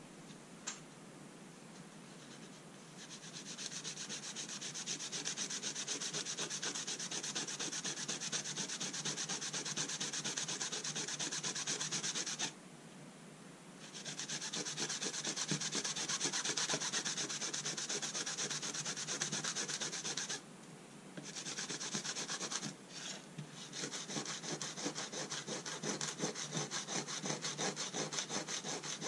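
Green Scotch-Brite pad scrubbing a brass plate coated in metal polish, in rapid back-and-forth strokes. The scrubbing starts a few seconds in, after a couple of light clicks, and stops briefly twice.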